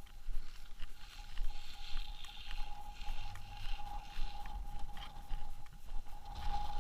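Gusty wind buffeting the microphone: an uneven low rumble that rises and falls from moment to moment, with a few light clicks and a faint steady high whine underneath.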